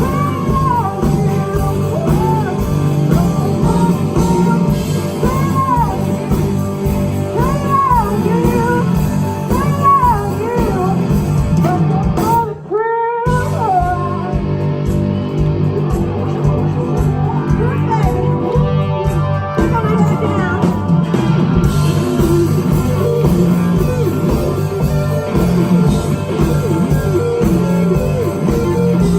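Live blues-rock band playing loud, with an electric guitar lead playing repeated bent notes over bass and drums; the sound briefly dips about halfway through.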